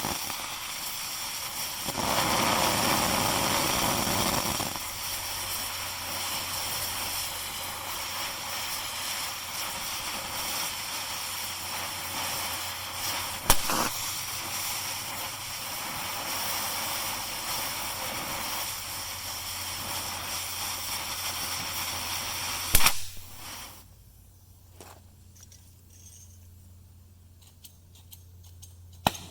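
Cutting torch hissing steadily, with a sharp pop about halfway through and another near the end. After the second pop the hiss stops and a low steady hum is left.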